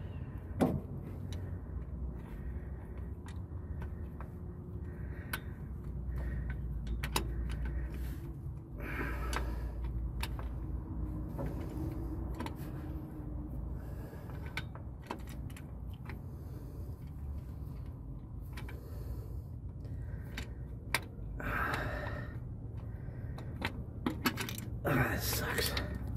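Light metallic clinks, taps and scrapes of a mechanical fuel pump and its mounting bolts being fumbled into place by hand against a Pontiac 350 V8's block, in short irregular clicks over a faint low hum.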